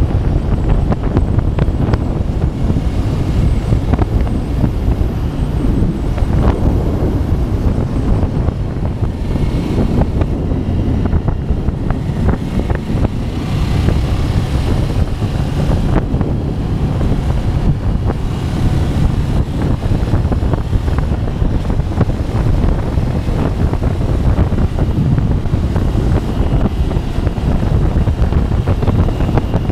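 Steady wind rush on the microphone of a motorcycle at road speed, with a Ducati Scrambler's air-cooled L-twin engine running underneath.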